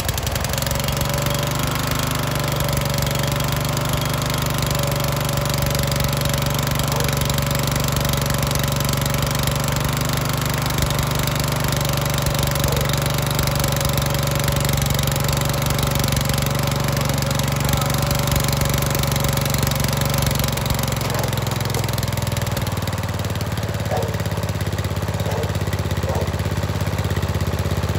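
Snapper riding mower's small gasoline engine running steadily just after starting. A little past two-thirds of the way through, its speed drops and the note settles lower.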